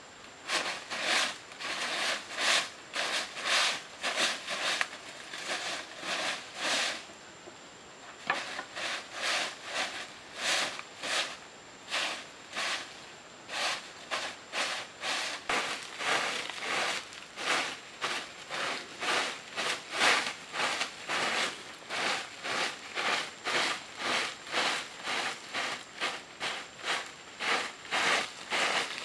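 A stiff bundle broom of dried fronds sweeping sawdust, wood shavings and dry leaves over dirt ground: rhythmic swishing strokes, about one to two a second, with a brief pause about a quarter of the way in.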